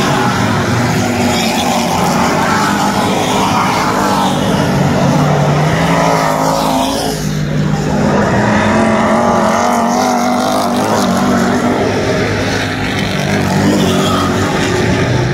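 Dirt-track race cars' engines running at racing speed around the oval, the engine pitch swelling and falling away as cars pass by in turn.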